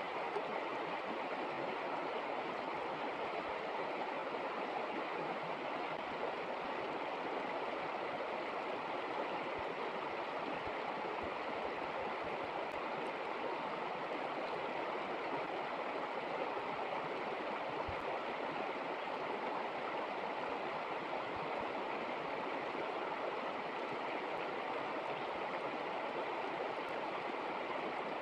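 Flowing river water: a steady, even rush.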